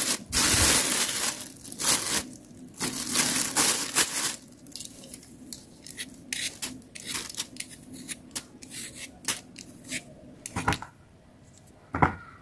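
A thin plastic bag crinkling and rustling as potatoes are pulled out of it, then a hand vegetable peeler scraping potato skin in short, irregular strokes. Near the end a peeled potato drops into a basin of water.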